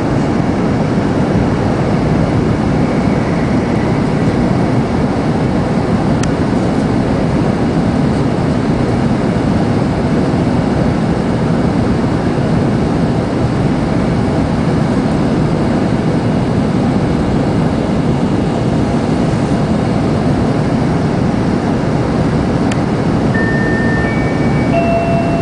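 Steady running noise inside a 0 Series Shinkansen car travelling at speed. Near the end the old intermediate-station chime begins, a few clear electronic notes stepping up and then dropping back, the signal that the arrival announcement for the next stop follows.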